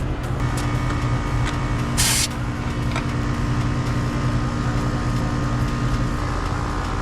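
Air-conditioner outdoor unit running with a steady low hum and a few steady tones, and a short hiss about two seconds in.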